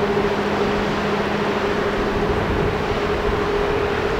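Steady drone of a tugboat's diesel engines pushing a loaded tanker barge upriver: an even hum over a rushing wash of water and wind.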